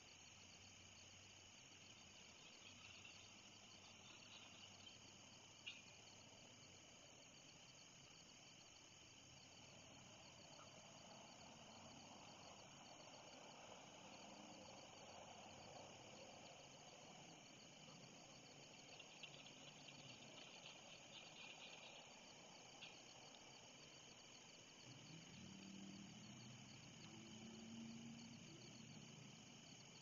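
Faint, steady chorus of crickets and other night insects, a continuous high pulsing drone. There is one sharp click about six seconds in, and a faint low wavering sound near the end.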